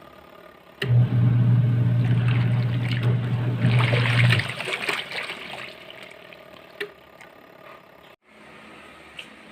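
Eureka 7.8 kg single-tub washing machine washing: the wash motor hums steadily for about three and a half seconds while water and laundry slosh in the tub, then the motor stops as the pulsator pauses between turns and the sloshing dies away.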